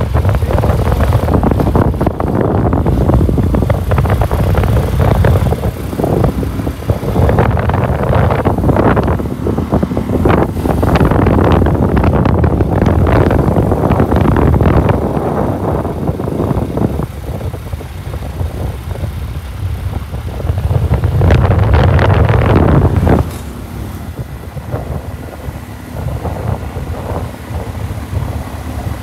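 Motorcycle running along the road with wind buffeting the microphone, the rush rising and falling in surges.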